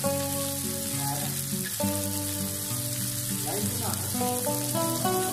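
Minced-meat kebab patties sizzling steadily on a ridged grill pan as their first side cooks, with background music playing underneath.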